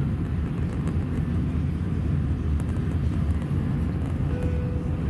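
Steady low rumble of an Airbus A320 in flight, heard from inside the passenger cabin: engine and airflow noise.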